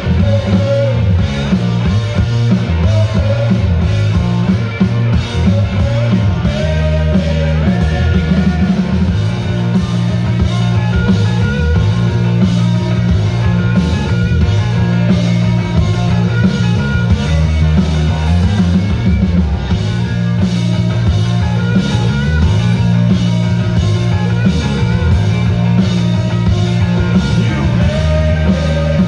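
Live rock music from an electric guitar and a drum kit, played loud.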